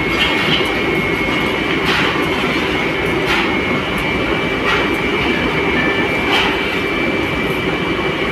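Steady foundry machinery running. A constant mechanical rumble carries a thin, steady high whine, and a brief faint swish recurs about every second and a half.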